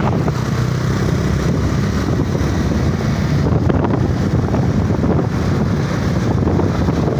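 Steady wind rushing over the microphone on a moving motorcycle, with the engine running underneath.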